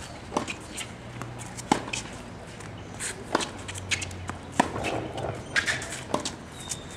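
Tennis ball being struck by racquets and bouncing on a hard court, sharp knocks about every one and a half seconds, over a low murmur from the crowd.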